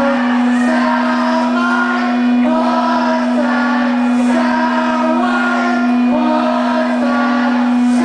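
Loud live music through the venue's sound system: a single low note droning without a break under a melody of held notes that step up and down about twice a second.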